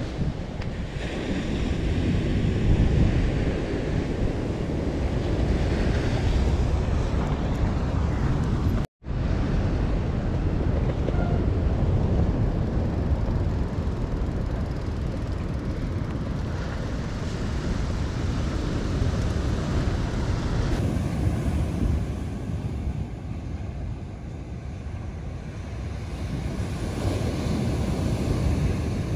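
Wind buffeting the microphone over the steady wash of surf breaking on a sandy beach. The sound cuts out completely for a moment about nine seconds in.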